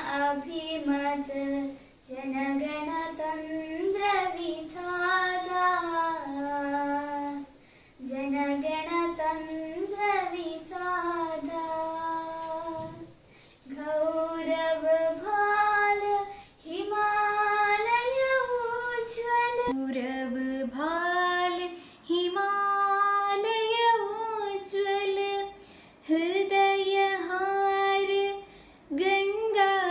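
A girl singing solo and unaccompanied, in held phrases with short breaths between them. About two-thirds of the way through, another girl's solo voice takes over, singing a Hindi song.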